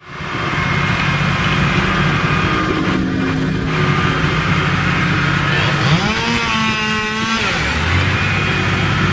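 Engine running steadily, then revving up about six seconds in, holding the higher pitch briefly before dropping back to a lower speed.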